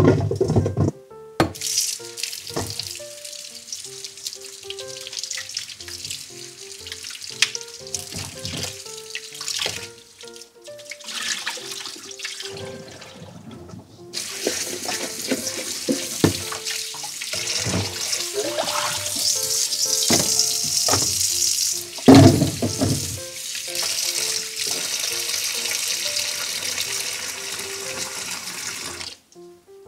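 Kitchen tap running into a stainless steel bowl in the sink while gloved hands scrub and rinse knobs of ginger to wash off the soil; the water eases off for a few seconds midway. A loud thump about two-thirds through.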